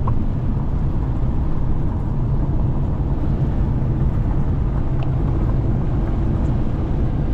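Steady low rumble of a car's tyres and engine, heard inside the cabin while driving over a rough gravel and dirt surface.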